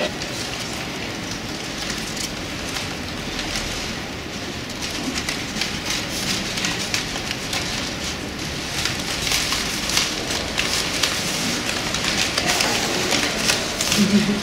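Crumpled brown paper of a hand-held puppet rustling and crackling as puppeteers move its head, arms and legs: a steady stream of small, dense crackles.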